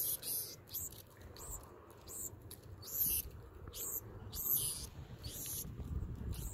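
Black-throated sparrows giving short, high chip notes, a dozen or so scattered unevenly, over a low rumble.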